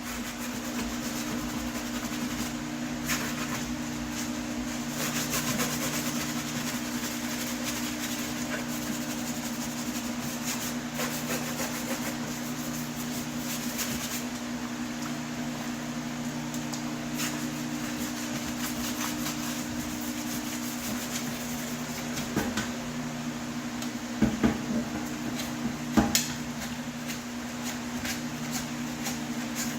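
Paint being scraped and worked off a metal HVAC register: scattered scraping and light clicks, with a few sharper knocks near the end. A steady low hum runs underneath.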